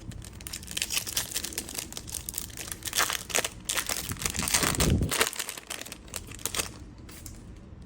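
A baseball-card pack's foil wrapper being torn open and crinkled by hand: a dense, irregular crackling that thins out over the last second or so.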